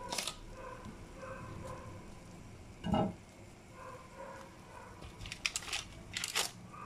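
A fork and baked chicken wings clinking and tapping against a ceramic plate and a baking tray: a sharp click at the start, a dull knock about three seconds in, and a cluster of quick clicks near the end.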